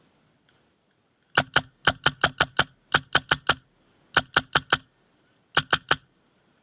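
An airsoft rifle firing rapid single shots: about eighteen sharp cracks in five short bursts, with brief pauses between them.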